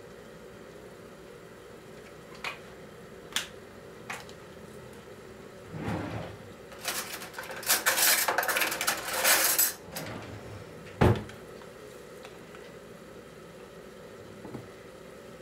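Kitchen utensils being handled: a few light clicks, then about three seconds of metal cutlery clattering, then a single sharp knock, like something set down hard on the counter.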